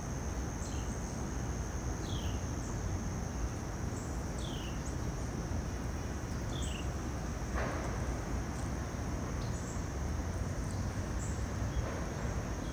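Steady hiss of light rain over a low background rumble, with a constant high insect trill and a bird repeating a short falling call about every two seconds.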